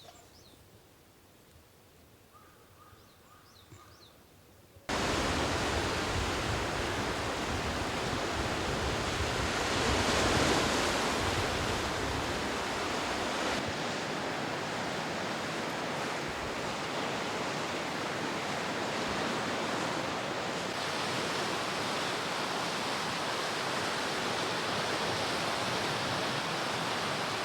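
A few faint high chirps over quiet, then a loud steady rushing noise of outdoor surf or wind cuts in abruptly about five seconds in, swells slightly around ten seconds, and cuts off abruptly near the end.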